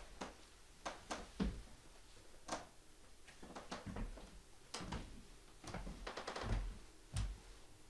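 Footsteps and scuffs on wooden stage floorboards as a person gets up and walks across: soft, irregular knocks, with a short rattling scrape about six seconds in.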